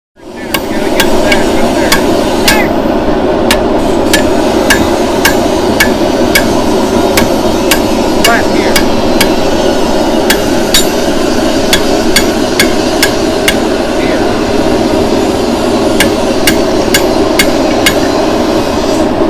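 Steel being hand-forged with a hammer on an anvil: sharp ringing blows about two a second, over a steady rushing noise.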